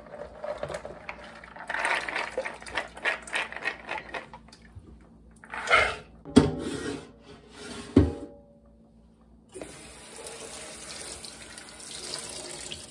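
Soaked dried beans rattling and water splashing in a stainless steel kitchen sink as beans are tipped from a plastic colander into a pot, then a pour of water and two sharp knocks of the pot. From about ten seconds in, the kitchen faucet runs steadily onto the beans in the colander.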